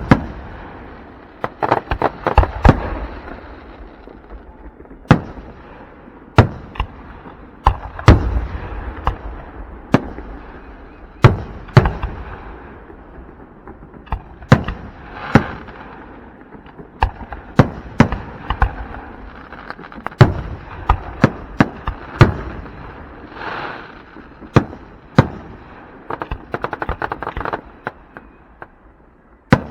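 Aerial fireworks show: shells bursting in loud bangs at irregular intervals, about one a second, with stretches of rapid crackling.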